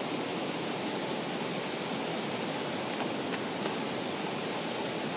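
Steady rush of a mountain waterfall and the cascading creek below it, with a few faint clicks about three seconds in.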